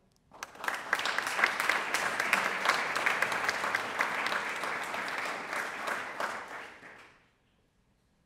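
Audience applauding: a dense patter of many hands clapping that starts about half a second in and dies away about a second before the end.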